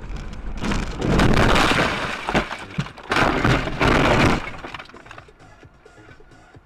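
Vehicle collision: two loud bursts of crunching impact noise and breaking glass, about a second and three seconds in, then dying away.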